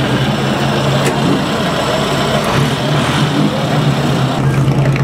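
Vintage OM racing car's engine idling steadily.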